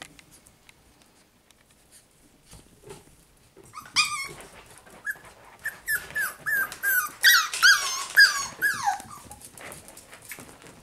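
Puppies yipping and whining during play, a rapid run of short high-pitched calls that starts about four seconds in after a few quiet seconds of soft clicks, and fades near the end.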